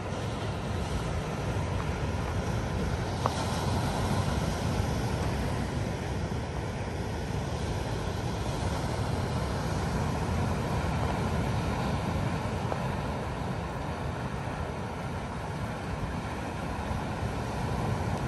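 Wind rumbling steadily on the microphone over the wash of surf breaking on a rocky shore.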